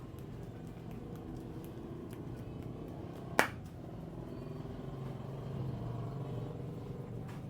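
A single sharp snap from the barber's massage about three and a half seconds in, over a steady low hum.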